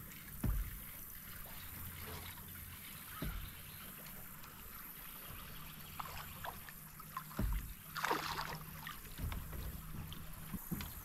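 Quiet sounds of fishing from a kayak on a slow river: faint wind and water, three dull thumps against the hull, and a brief rushing noise about eight seconds in.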